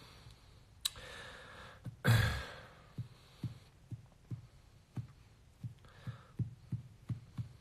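A man sighs with a breathy exhale close to the phone's microphone about two seconds in, then soft low taps about three a second from his hand on the phone.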